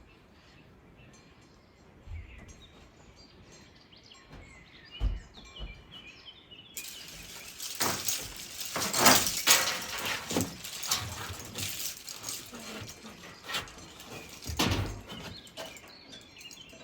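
Small birds chirping over quiet outdoor background, with a few dull thumps; about seven seconds in a loud hissing, rustling noise starts, with sharp louder bursts, and runs on to the end.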